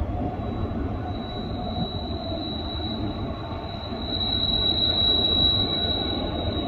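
Loaded coal unit train rolling by on the curve, its wheels squealing in one steady high note over the low rumble of the cars. The squeal starts just after the opening and grows louder a little past halfway.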